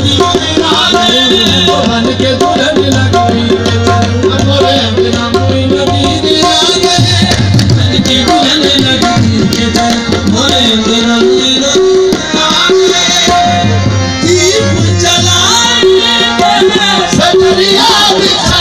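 Live qawwali played loudly: tabla drumming under sustained harmonium-like held tones, with sung vocal lines coming in now and then.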